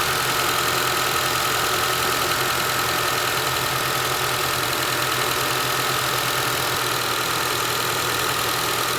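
Honda car engine idling steadily, with an even low pulse and a steady high-pitched whine over it.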